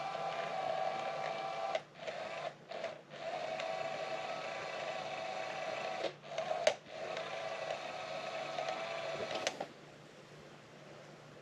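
Small electric motor of a SmartyKat Hot Pursuit cat toy whirring as it drives the hidden wand around, cutting out briefly three times, with a sharp click about two-thirds through, then stopping near the end.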